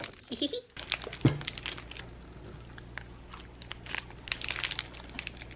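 Clear plastic snack wrapper crinkling and crackling in the hands while a pastry is bitten through it, over a faint low steady hum.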